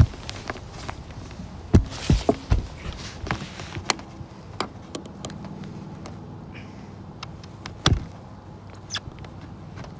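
Scattered clicks and taps from hands and a tool working on an RV roof around a newly sealed skylight. A few louder thumps come near the start, around two seconds in and about eight seconds in.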